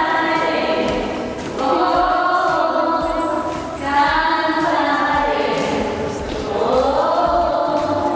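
Background music of several voices singing long, held notes in harmony, choir-like, with the notes sliding upward near the end.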